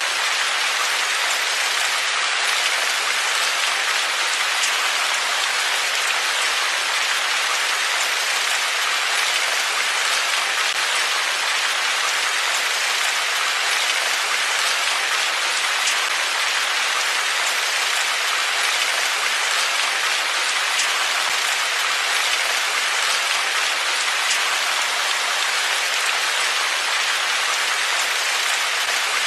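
Steady rain falling: an even, unbroken hiss with scattered drops ticking through it.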